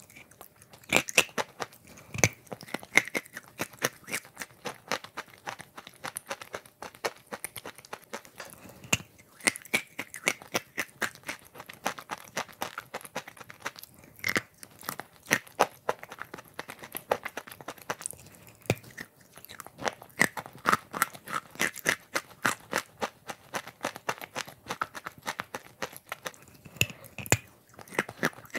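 Close-miked crunching and chewing of chalk chunks coated in wet clay paste: a dense, irregular run of crisp crunches as big bites are bitten off and chewed.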